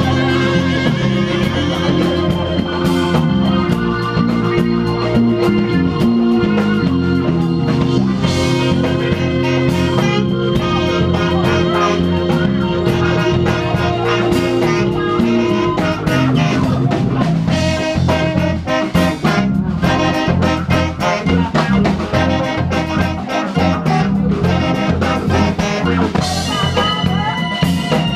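Live band playing an instrumental, with two saxophones out front over electric keyboard, guitar and drums. One note is held for about twelve seconds through the middle.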